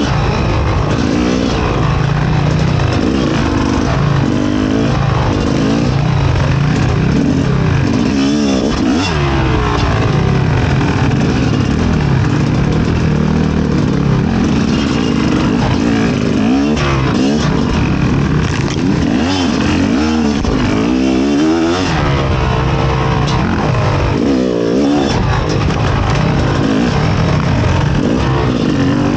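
Fantic XE 300 two-stroke enduro motorcycle engine being ridden hard, the revs rising and falling again and again.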